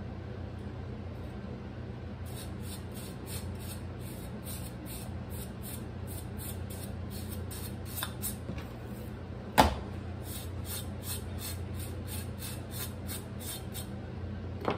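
A knife drawn across the skin of a raw pork belly in short, regular scraping strokes, about two a second, with one sharp knock about ten seconds in. A steady low hum runs underneath.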